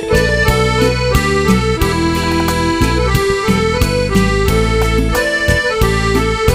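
Background music: a melody of held, reedy notes over a steady, regular beat.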